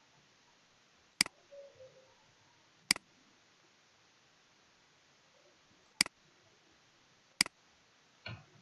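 Computer mouse button clicking four times, each click a quick double tick of press and release, with a softer, duller knock near the end.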